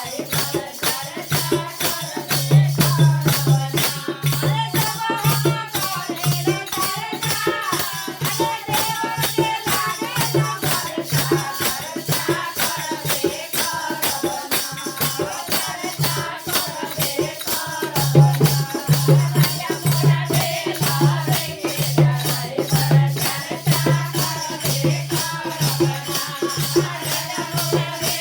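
Music of a devotional folk song (bhajan): a steady, fast rattle-like percussion rhythm with a drum pulsing underneath and a wavering melody line.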